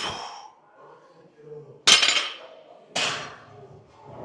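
Metal clanks of barbell weight plates: three sharp hits, the second, about two seconds in, the loudest and ringing.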